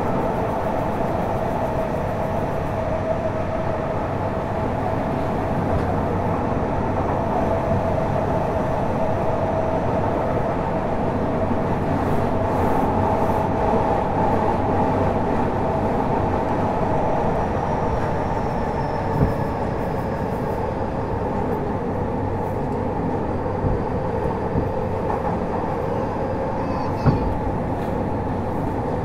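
Fukuoka City Subway Series 2000 train (Hitachi GTO-VVVF control) running, heard from inside the car: a steady rumble and whir of the wheels and running gear, with a few short sharp clicks.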